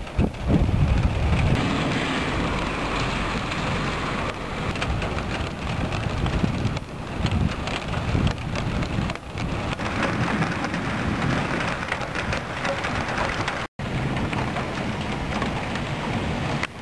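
Heavy thunderstorm rain with thunder rumbling, the rumble heaviest in the first couple of seconds. The sound drops out for a moment near the end.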